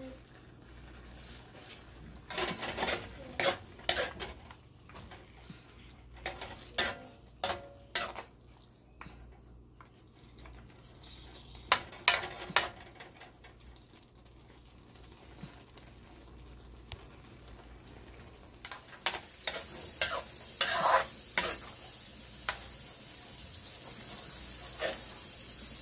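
Metal spoon scraping and clinking against a metal wok as a thick, saucy goat stew is stirred, in several short bursts of strokes with pauses between. A steady sizzling hiss from the pan comes up in the last several seconds.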